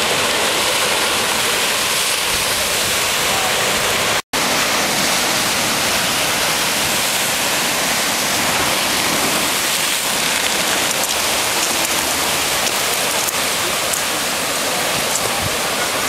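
Rough ocean surf breaking and washing up the shore: a steady, loud rushing hiss. The sound cuts out for an instant about four seconds in, then resumes unchanged.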